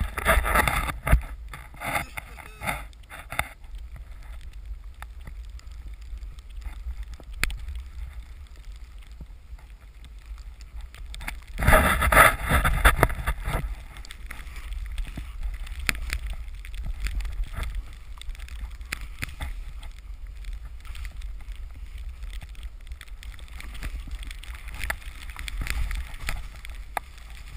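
Snowboard sliding and turning through deep powder snow, a steady rush with a constant low rumble of wind on the microphone. The hiss of the snow gets louder at the start and again around twelve seconds in, for a second or two each time.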